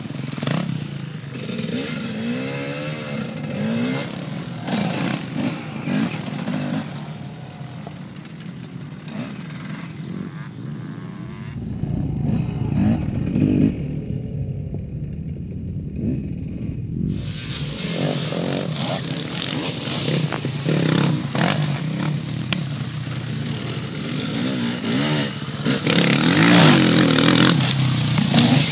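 Off-road enduro dirt-bike engines revving and pulling as riders work through the course, the pitch repeatedly rising and falling with throttle. About a third of the way in, the sound turns to a muffled low rumble for several seconds before the engines come back clearly, loudest near the end.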